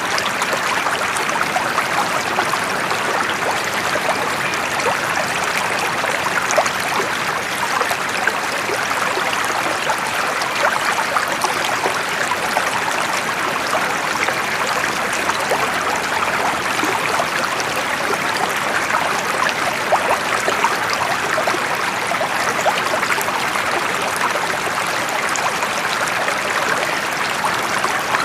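Flowing water, running steadily as a dense, even babble of many small splashes and trickles.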